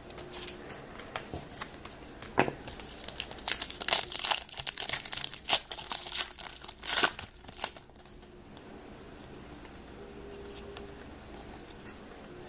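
Foil wrapper of a hockey trading-card pack crinkling and tearing as it is opened, in a burst of sharp crackles lasting several seconds that dies down about two-thirds of the way through.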